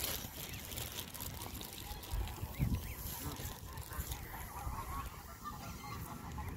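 Canada geese calling softly among the flock, a few short calls scattered through, with two low bumps a little past two seconds in.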